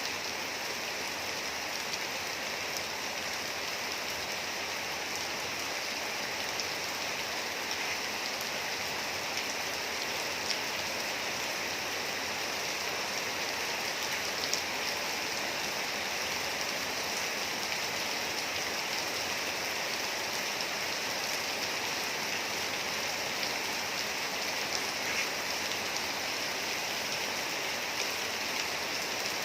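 Steady rainfall: an even hiss of rain with scattered small drop ticks on a surface.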